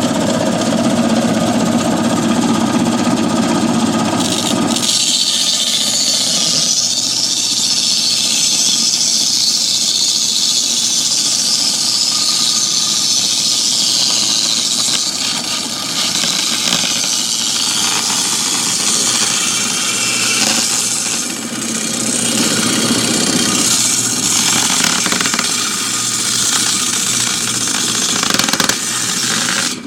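Homemade table saw driven by a scrap washing-machine motor, running, then from about five seconds in its blade cutting through 3/4-inch plywood, a steady high-pitched hiss with a few brief dips as the wood is fed.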